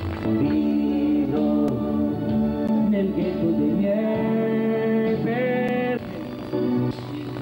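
A man singing an Italian pop song into a handheld microphone over musical backing, with a long held note about five seconds in.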